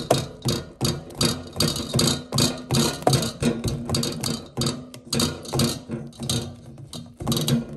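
Silicone spatula mixing thick grated potato, onion and flour batter in a stainless steel bowl: rhythmic scraping and slapping strokes, about two to three a second.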